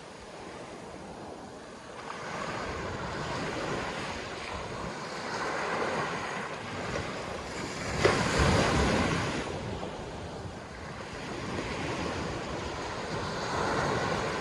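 Sea waves breaking and washing on a sandy beach, the surf swelling and fading several times, with a loud break about eight seconds in. Wind buffets the microphone.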